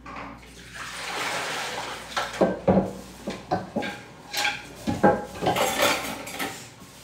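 Water running from a kitchen tap into the sink, then dishes clattering and clinking as they are washed by hand, with many sharp knocks of crockery against crockery and the sink.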